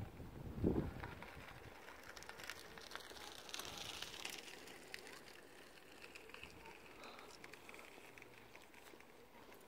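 A brief gust of wind buffeting the microphone under a second in, then faint outdoor background hiss with scattered soft clicks.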